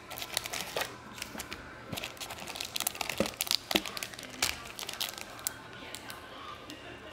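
Foil booster-pack wrappers and plastic packaging crinkling and crackling as they are lifted out of a cardboard box and handled, with small taps of cardboard. The crackles come thick and fast at first and thin out toward the end.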